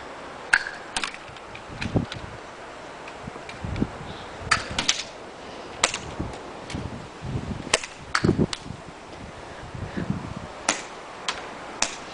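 Airsoft guns firing: a dozen or so sharp pops at irregular intervals, some in quick pairs, with a few dull thumps in between.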